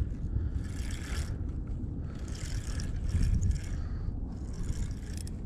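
Spinning reel being cranked in a few short spells while a hooked trout is played on the line, over a low wind rumble on the microphone.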